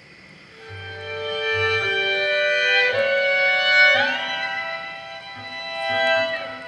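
Violin music: a slow melody of held notes that swells in loudness and slides between some notes, over soft low pulses.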